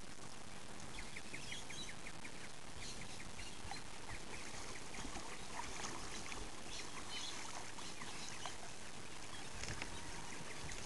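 Double-bladed paddle dipping and splashing as a surf ski is paddled across pond water, with birds chirping around it.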